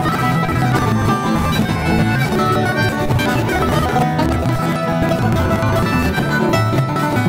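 Live acoustic bluegrass-style band playing: a strummed acoustic guitar and a picked five-string banjo, with harmonica played into a microphone.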